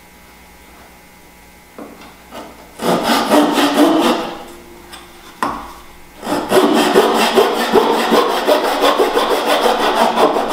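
Fine-toothed razor saw cutting a small wooden part in a miter box, trimming it to 45 degrees with quick short strokes. A first short run of strokes starts about three seconds in, then a pause, then a steady run of rapid strokes from about six seconds on.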